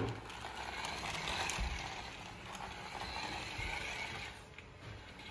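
Small electric motor and gears of a toy remote-control car whirring as it drives forward, its plastic wheels rolling over rough concrete.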